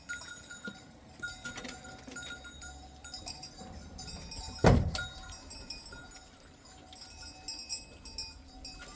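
Bells on a flock of sheep and goats clinking faintly on and off, with one loud thump about halfway through.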